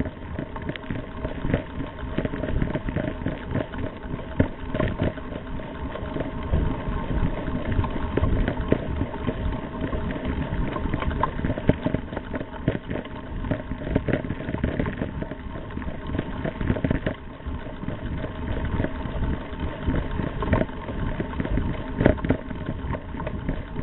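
Riding noise from a mountain bike on a dirt track, picked up by a camera mounted on the bike: a continuous rumble of tyres rolling over dirt, with frequent clicks and rattles from bumps.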